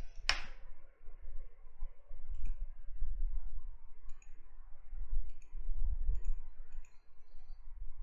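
Faint, scattered clicks about a second apart over a low rumble.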